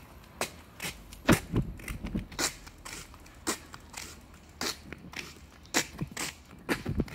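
Footsteps of a person walking on asphalt, sharp crisp steps at about two a second.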